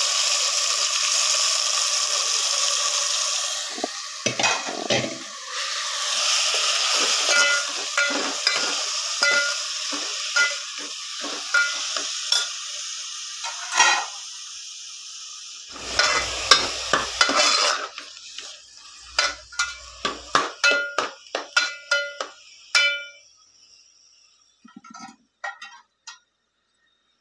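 Grated bottle gourd sizzling as it fries in hot desi ghee in a pot, its water cooking off, with a spoon scraping and knocking against the pot as it is stirred. In the latter part the sizzling dies away, leaving a run of sharp spoon clicks and clinks on the pot.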